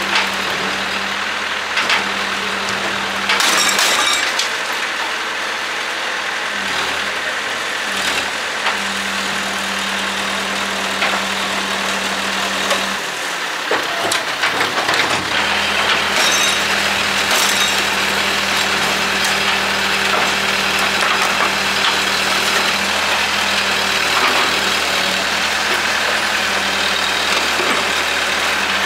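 Heavy diesel engine idling steadily, with scattered short knocks and clanks.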